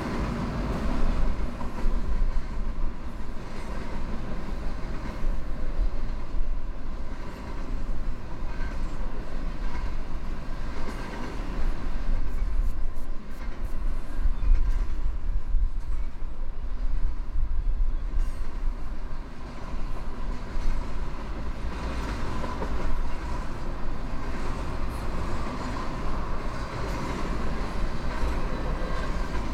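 Norfolk Southern double-stack container train rolling past: a steady rumble of freight-car wheels on the rails that goes on without a break.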